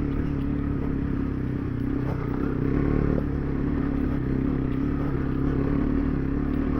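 Single-cylinder dual-sport motorcycle engine running under way at steady revs, holding an even pitch.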